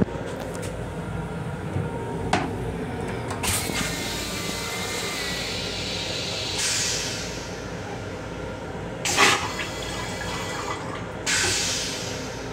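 Flush of a commuter-train toilet's stainless-steel bowl: a click and a knock, a few seconds of hissing rinse water, then three sudden rushing whooshes as the bowl empties, the middle one loudest.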